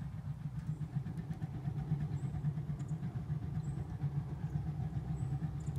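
Smudge-pot orchard heater burning motor oil, its flame in the stack making a steady low fluttering rumble.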